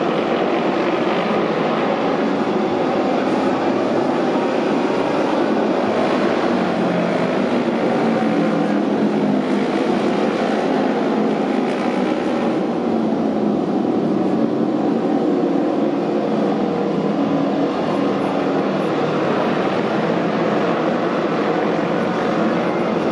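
Several auto race motorcycles racing around the track together, their engines making a loud, steady drone with no let-up.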